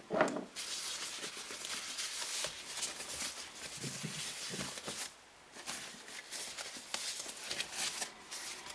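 Soft white packaging wrap rustling and crinkling as it is unfolded from around a boxed device, in two handling stretches with a short pause about five seconds in.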